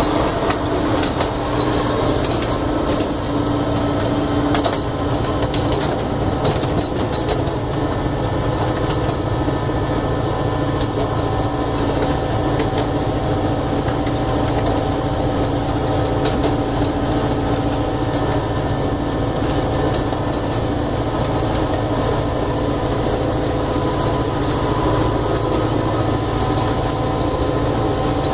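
Miniature park train running steadily: an engine hum with several held tones under rumbling wheels, and scattered clicks as the wheels pass over the rail joints, heard from an open passenger car.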